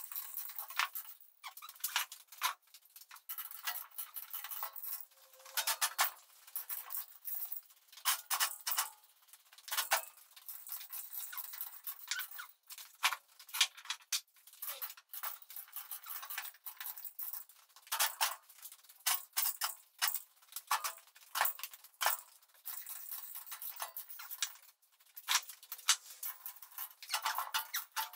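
Irregular metallic clicking and chain rattle from a hand chain hoist lifting an engine on a gantry, thin, with no low end.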